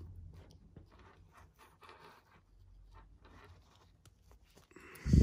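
Faint handling noise: soft clicks and rustles of a plastic action figure being turned and moved in the hands, with a louder short thump right at the end.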